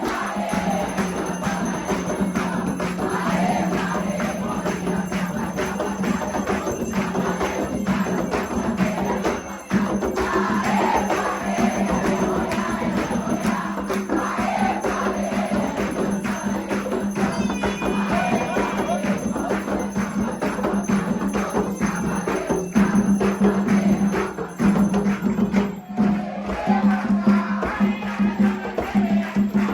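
Afro-Brazilian religious ceremony music for Xangô: percussion with jingling, and voices singing. It gets somewhat louder near the end.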